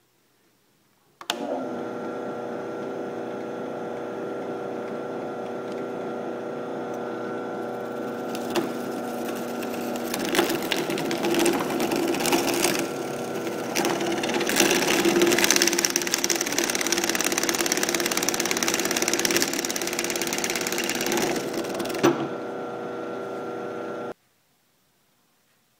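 Drill press motor starting and running with a steady hum while its bit bores down through the lens housing of a Nikon CoolPix compact camera. Partway through, the cutting adds a rough grinding and crackling that grows louder, then eases back to the plain motor hum before the sound cuts off abruptly near the end.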